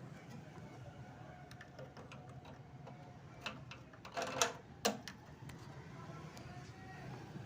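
Light clicks and taps over a low steady hum, with a few louder clicks about two-thirds of the way through.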